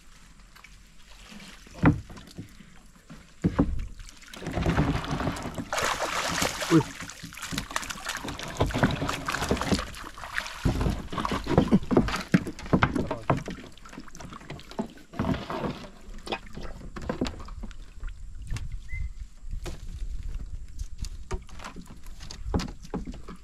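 A wire-mesh fish trap being hauled out of a river onto a wooden boat: water splashing and streaming off the mesh, with knocks and scrapes of the trap's frame against the boat. A sharp knock comes about two seconds in, and the splashing is heaviest in the middle of the stretch.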